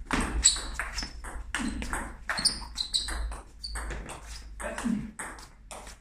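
Table tennis rally: a table tennis ball clicking sharply off rubber bats and the table top, many irregularly spaced hits in quick succession.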